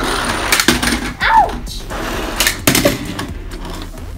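Hot Wheels toy cars clattering on a tabletop as they are pushed along and flip over, making several sharp clicks and knocks. A brief voice rises and falls about a second in.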